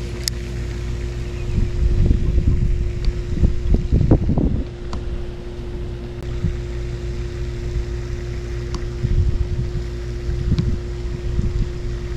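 Wind buffeting the microphone in gusts over a steady low hum, with a few faint ticks.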